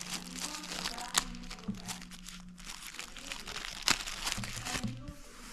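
Packaging crinkling and rustling in irregular bursts as the camera's cables are taken out of the box.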